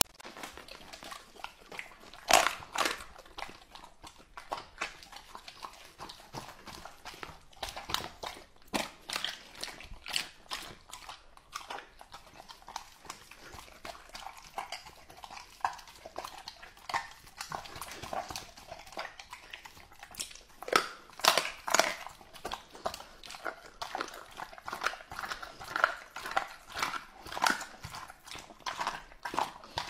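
Rottweiler eating a raw-meat meal from a plate: wet chewing and biting with irregular sharp clicks and smacks, the loudest about two seconds in and again a little past the middle.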